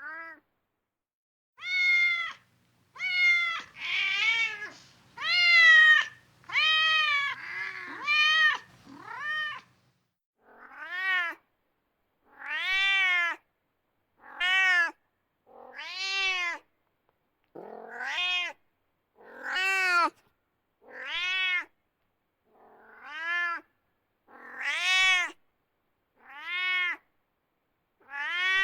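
Domestic cat meowing over and over: about eighteen separate meows, each rising and then falling in pitch, with short silent gaps between them.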